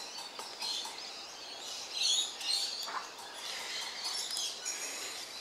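Birds chirping in the background in short, high calls, with light knocks and rustles of a camera body being turned over in the hands.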